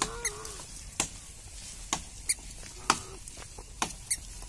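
A toddler's footsteps crunching on dry leaves and gravel, about one step a second, with a few short, high chirps in between.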